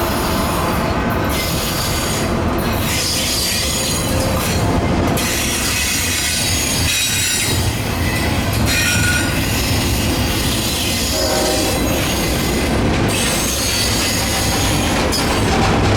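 Freight train cars rolling past: a steady rumble of wheels on rail, with high-pitched wheel squeal coming and going.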